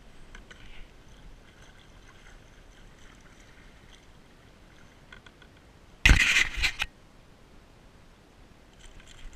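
Handling noise on a kayak: light scrapes and clicks, then a loud clattering knock about six seconds in that lasts under a second, as the camera mount and gear are bumped.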